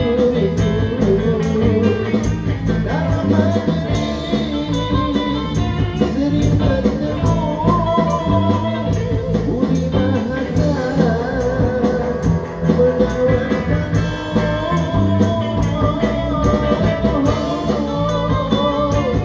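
Live busker band playing a 1960s-style Malay pop song: a singer's voice over instruments with a steady beat.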